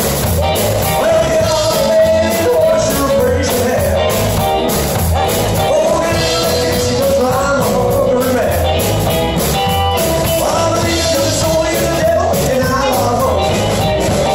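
Live rock and roll band playing: a male singer backed by electric guitar, upright bass and drums, with a steady beat, heard from the audience.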